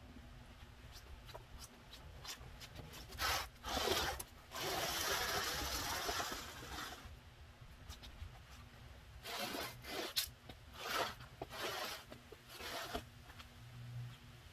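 Furniture being pushed and dragged across a floor, making a series of scrapes. The longest scrape lasts about two seconds, around five seconds in.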